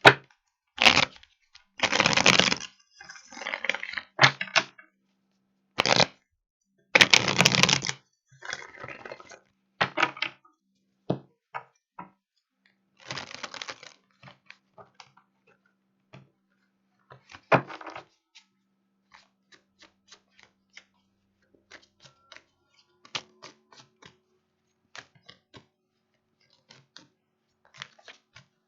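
Tarot cards being shuffled and handled: several brushing, riffling bursts in the first half, then scattered light taps and clicks of cards on a surface.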